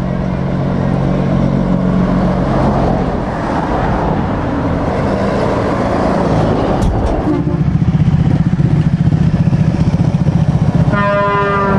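Heavy trucks' diesel engines running as the trucks drive past close by one after another, with a deep pulsing engine note building in the second half. Near the end a truck's air horn starts a steady multi-tone blast.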